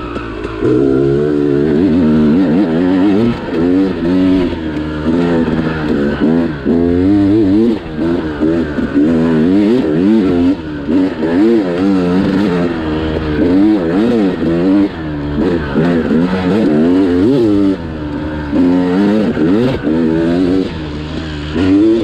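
2001 Yamaha YZ250 two-stroke dirt bike engine, bored out to 295 cc with an Eric Gorr woods port, being ridden along a dirt trail. Its pitch repeatedly rises and falls as the throttle is worked, with frequent brief dips where the throttle is rolled off.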